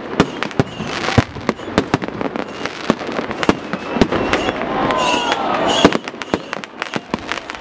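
Fireworks display: a dense run of sharp bangs and crackles from bursting aerial shells, getting louder and busier about five to six seconds in.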